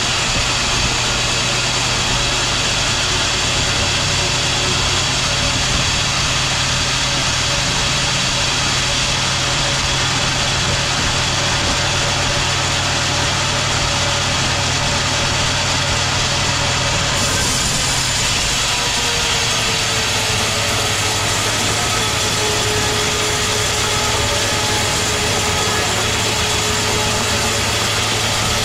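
Sawmill machinery running with a steady engine hum. About two-thirds of the way through, a hiss comes in on top of the hum and a few faint steady tones appear.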